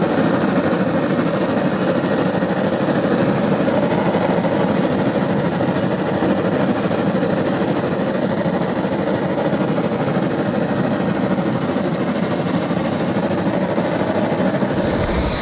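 Helicopter in flight, its rotor and engine running steadily with a fast, even beating. Just before the end it gives way abruptly to a different low rumble.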